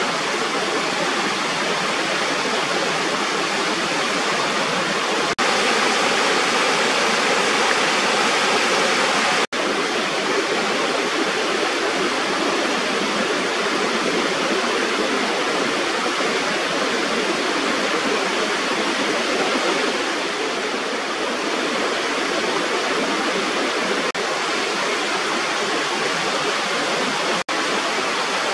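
Water pouring steadily over a small waterfall at a rubber weir, a constant loud rushing, broken three times by an instant gap.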